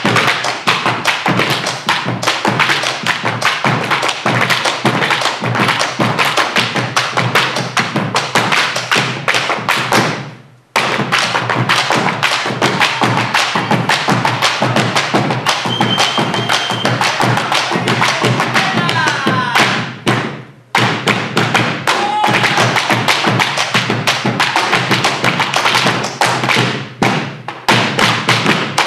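Malambo zapateo: fast stamping and tapping of boots on a wooden stage floor, mixed with the rapid thuds of boleadoras whirled and struck against the floor, with bombo drums beneath. The strikes stop briefly twice, about a third and about two-thirds of the way through.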